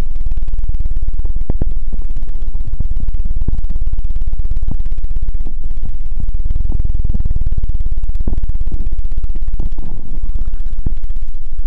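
Hands rapidly cupping and fanning over a binaural microphone's foam-covered ears in the ASMR 'helicopter' trigger. The result is a loud, fast, steady low thumping with no pauses.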